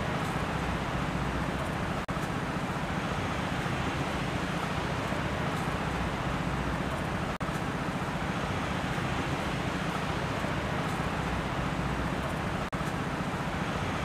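Steady rushing outdoor ambience noise, even and without distinct events. It cuts out for an instant three times, about every five seconds.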